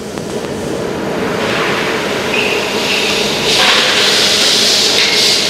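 CNC router machinery running with a rushing hiss that builds gradually, then steps louder about three and a half seconds in.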